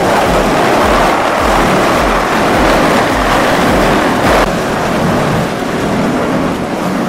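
Loud, steady machine noise with a regular low beat underneath.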